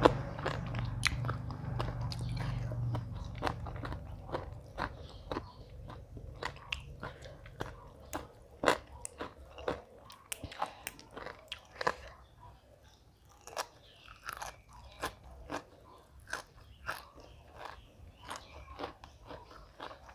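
Close chewing and crunching of crisp food, with irregular sharp crunches several times a second. A low rumble sounds under it in the first few seconds and fades away.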